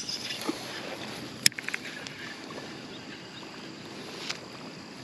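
A sharp click about a second and a half in, followed at once by a few quick fainter ticks, then a single smaller click near the end, over a steady background hiss.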